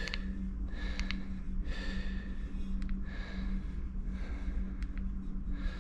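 A person breathing audibly, soft puffs about once a second over a steady low hum, with a few faint clicks.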